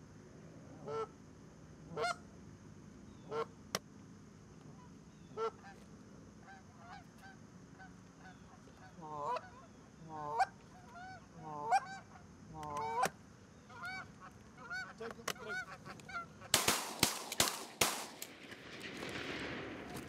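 Canada geese honking, single spaced honks at first, then a quick run of honks and clucks. Near the end comes a rapid volley of about half a dozen shotgun shots, followed by a fading rush of noise.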